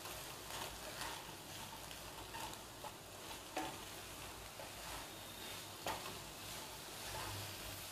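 Wooden spatula stirring chopped okra and onion frying in oil in a kadai, scraping through the vegetables with a few light knocks against the pan, over a soft steady sizzle.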